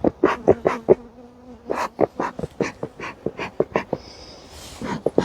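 Honey bees buzzing close by: a steady hum, plainest in the first second and a half, over a rapid, irregular run of sharp taps.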